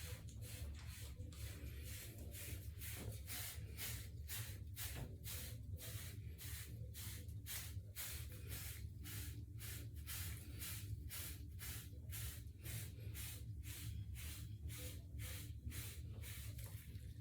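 Hair brush bristles stroking through short hair in a steady rhythm of about two strokes a second, each stroke a short rasping hiss.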